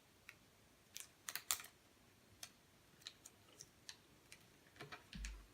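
Faint, scattered clicks and light taps of a small plastic toy and its sticker sheet being handled, with a soft low bump near the end.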